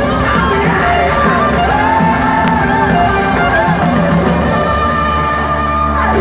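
Hard rock band playing live: electric guitars, bass and a drum kit at full volume, with a melodic line bending up and down over a steady low bass.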